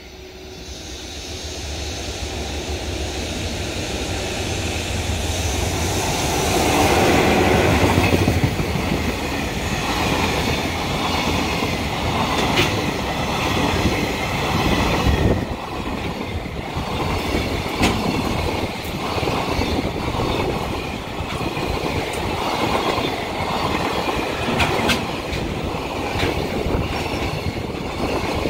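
A freight train passing: the sound builds up to its loudest about seven seconds in, then a long run of freight wagons clatters past with regular clicks of the wheels over the rail joints.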